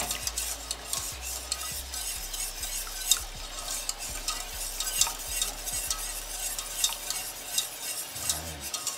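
Wire whisk stirring milk into a cheese-sauce roux in a stainless steel saucepan, its wires scraping and clicking against the pan in quick, irregular strokes as the lumps are whisked out. A sharper click comes about three seconds in.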